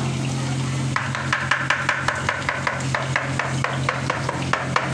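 Kitchen knife chopping on a plastic cutting board: quick, even chops, about five a second, starting about a second in, over a steady low hum.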